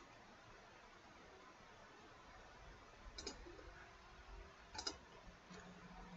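Computer mouse clicking, once about three seconds in and again about five seconds in, over near silence with a faint hiss.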